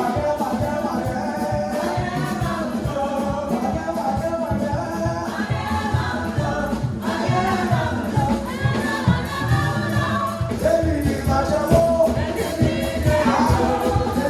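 Gospel praise music: a choir and lead singers singing a lively medley over a band with a fast, steady beat.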